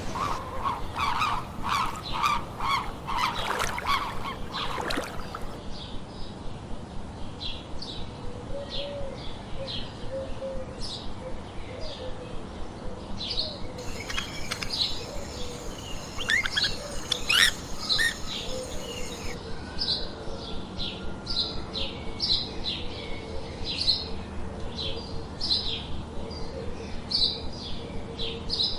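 Wild birds calling: a short high chirp repeated about once a second, with a dense run of lower chattering calls in the first few seconds and a busier flurry of calls about halfway through.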